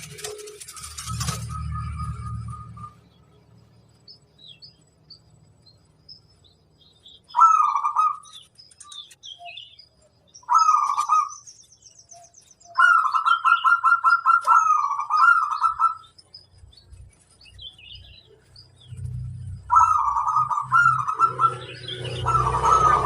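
Zebra dove (perkutut) cooing in several phrases of quick pulsed notes, the longest lasting about three seconds, with faint high chirps of smaller birds between them.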